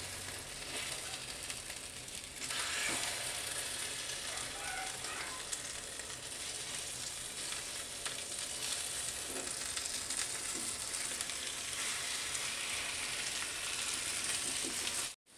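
Egg-stuffed capsicum rings frying in mustard oil in a pan, a steady sizzle that gets louder about two seconds in and cuts off abruptly just before the end.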